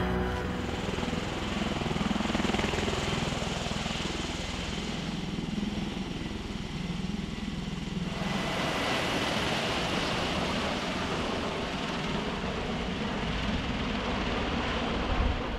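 Steady engine noise from military field footage, a low wavering hum under a hiss. A brighter, higher hiss comes in about eight seconds in.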